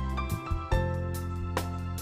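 Background music: struck keyboard notes over a sustained low bass.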